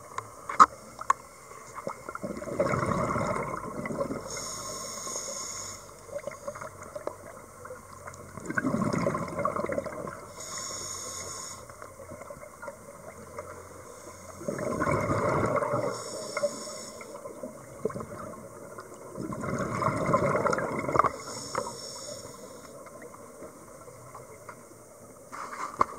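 Scuba diver breathing through a regulator underwater: four breaths about six seconds apart, each a loud burst of exhaled bubbles followed by the shorter, higher hiss of the inhale. A few sharp clicks come at the start.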